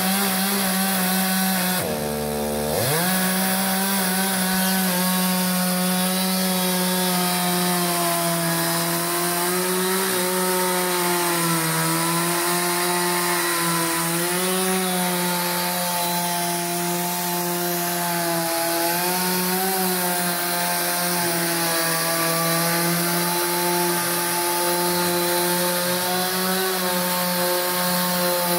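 Stihl chainsaw running at high revs as it makes a vertical plunge cut through a large eucalyptus log, guided by a homemade Alaskan chainsaw mill. The engine note dips sharply and recovers about two seconds in, then wavers as the chain bogs and picks up under load.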